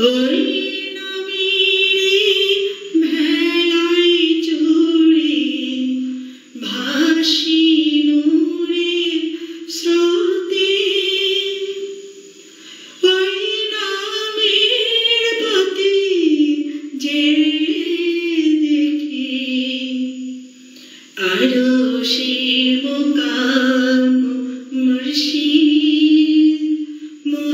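A woman singing a Bengali Islamic devotional song (gojol) in a single melodic voice, with no clear instrumental backing. The song runs in long phrases broken by brief pauses, about 6, 12 and 20 seconds in.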